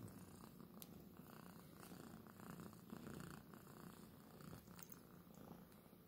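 Domestic cat purring softly, a faint low rumble that swells and fades with each breath.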